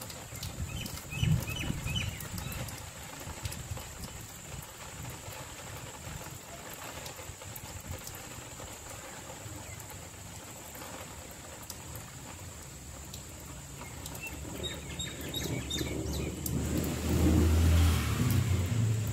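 Outdoor ambience during a light monsoon rain that is almost stopping. A few bird chirps come near the start and again about fifteen seconds in. A low rumble of distant thunder swells over the last few seconds and is loudest near the end.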